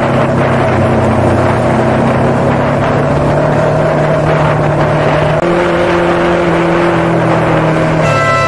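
Sport motorcycle engine running steadily under way, its pitch stepping to a new note about five seconds in. Near the end a horn starts sounding and is held.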